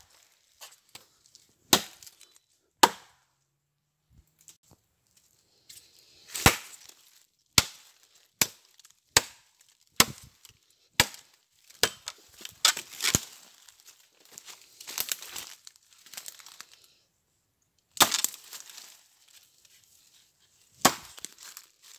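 Machete chopping into a green jonote (Heliocarpus) log: well over a dozen sharp strikes of the blade biting the wood, irregularly spaced and coming fastest in the middle, with a stretch of softer scraping and rustling between strikes later on.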